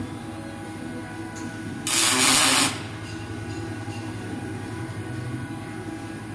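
Robotic MIG welding cell running, with a steady machine hum and several steady tones as the welding robot arm moves. About two seconds in comes a loud hiss lasting under a second.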